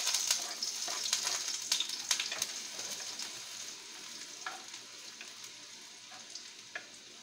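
Chopped garlic sizzling in hot oil in a wok, loudest as it goes in and slowly dying down, with the clicks and scrapes of a wooden spatula stirring it against the pan.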